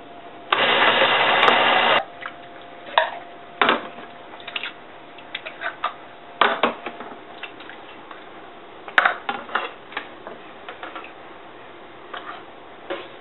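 A small electric kitchen motor runs once for about a second and a half, then stops, followed by scattered clicks and knocks of kitchen utensils and containers.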